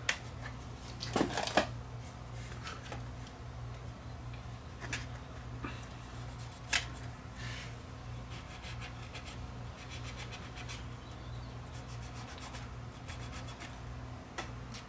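Small clicks and scratching from hands working on a disassembled camcorder's circuit boards and connectors, over a steady low hum. The loudest clicks come about a second in and near seven seconds.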